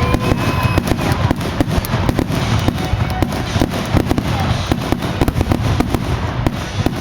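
Fireworks display firing a rapid barrage of shells, many bangs and cracks a second, with a few whistling tones near the start.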